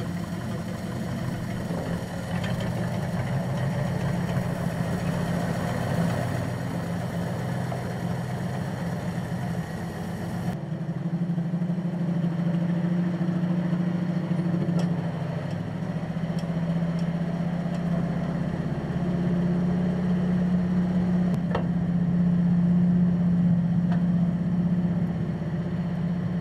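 Engine of a small switcher locomotive running steadily, a constant low hum. The sound changes abruptly about ten seconds in, and there are a couple of faint clanks later on.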